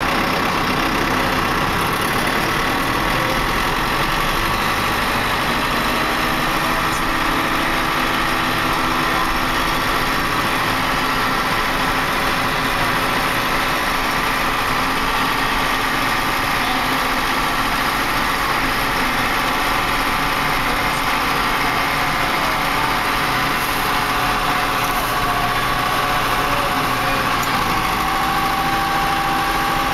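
Small tractor's engine running steadily as it drives along a snow-covered lane, its pitch rising slightly near the end.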